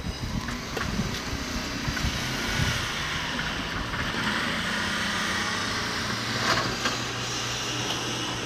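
Diesel train engine running steadily with a low hum, a few faint clicks over it.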